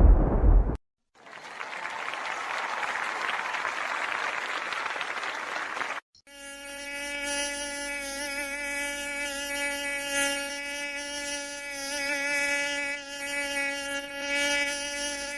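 A flying insect buzzing: a steady, slightly wavering hum that starts about six seconds in and holds to the end. It comes after about five seconds of even, hissing noise.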